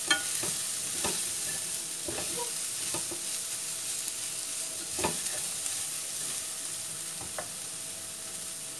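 Shredded cabbage, carrots and chicken sizzling in a nonstick pan while a spatula stirs them, with a soft knock of the spatula against the pan every second or two; the sharpest knocks come right at the start and about five seconds in.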